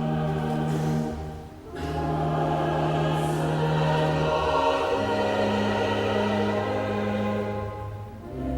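Church choir singing held chords in slow phrases, with steady low sustained tones beneath; the sound dips briefly between phrases about a second and a half in and again near the end.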